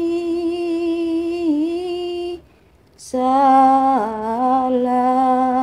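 A woman's voice singing an Islamic shalawat unaccompanied, slowly and in long drawn-out notes: one note held for about two seconds, a short break, then a new held phrase starting about three seconds in.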